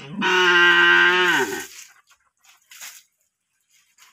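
A cow mooing once: a single loud call of about a second and a half, held level in pitch and then dropping as it ends.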